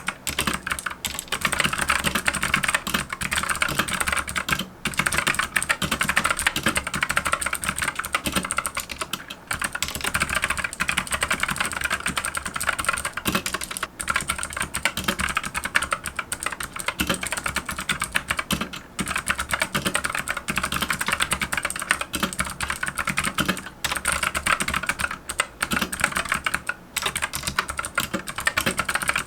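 Continuous typing on a Monstargear MK308 mechanical keyboard with clicky Gateron blue optical switches and PBT keycaps: a dense run of sharp key clicks with short pauses every few seconds.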